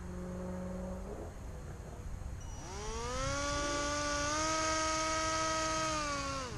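Homemade RC boat's small electric motor spinning an air propeller. It gives a brief steady hum in the first second, then winds up from about 2.5 s into a steady high whine, and spools down just before the end.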